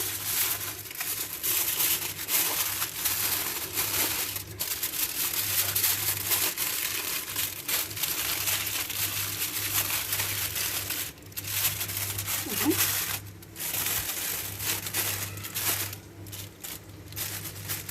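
Aluminium foil crinkling as it is folded and pinched around a fish into a boat shape, in stretches with short pauses.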